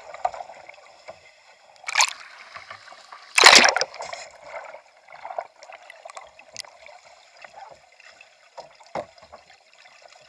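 Water sloshing and bubbling around a capsized kayak, heard from under the surface, with two loud rushes of water about two and three and a half seconds in.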